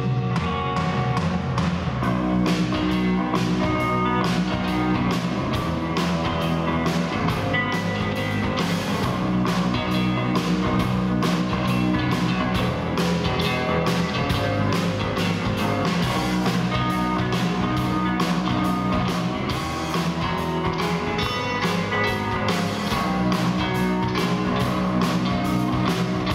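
Live rock band playing electric guitars, bass guitar and drum kit, with a steady drum beat.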